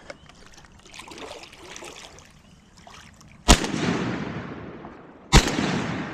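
Two shotgun shots about two seconds apart, each followed by a long echo that fades slowly.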